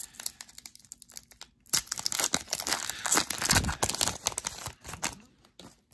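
Foil trading-card pack wrapper being torn open at the seam and peeled back from the cards. Scattered crackles at first, then a dense run of crinkling and tearing that stops about five seconds in.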